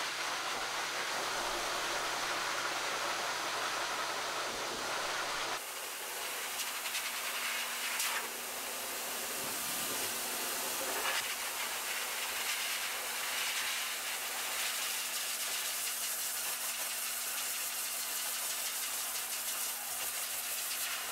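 High-velocity pet dryer blowing a steady hiss of air through a big dog's thick coat. The sound changes abruptly about five seconds in.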